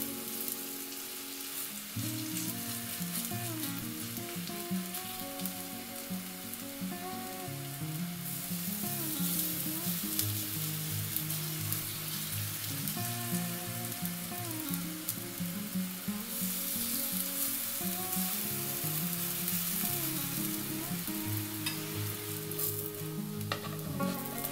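Zucchini fritter batter sizzling as it fries in hot oil in a frying pan, a steady frying hiss as spoonfuls are added and spread.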